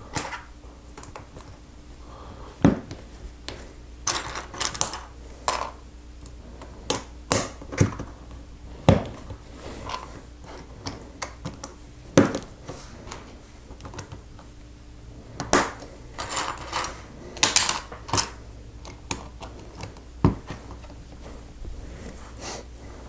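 Plastic Lego bricks being handled and snapped together: irregular sharp clicks and light clatters, some single and some in quick clusters, as pieces are taken from a loose pile and pressed onto a plate.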